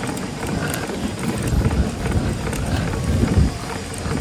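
Wheels of a pet stroller rolling over an asphalt path: a steady low rumble that swells louder twice.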